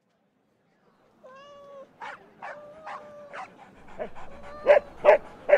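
A dog whining in distress: a long whimper, then a run of short, sharp yelps that grow louder near the end.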